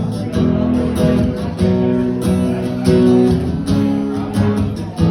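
Acoustic guitar strumming chords in a steady rhythm: an instrumental break between the sung lines of a country song.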